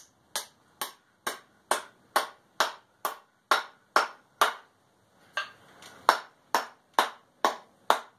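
Hammer blows driving a glue-coated wedge into the end of the handle to lock the punch head on, a steady run of sharp, ringing strikes about two a second with a brief pause midway.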